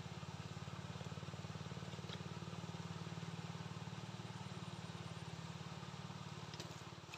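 A small engine running steadily at an even speed with a fast, regular pulse, cutting off suddenly near the end.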